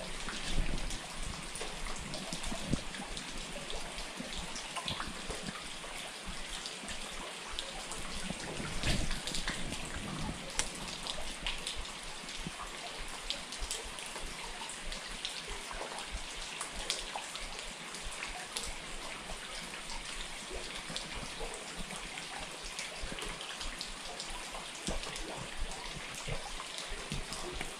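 Steady rain: an even hiss with many scattered, irregular drop ticks.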